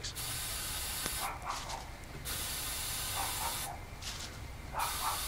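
Aerosol hairspray can sprayed into a potato cannon's combustion chamber in three long hissing squirts with pauses of about a second between them: the propellant fuel being loaded before firing.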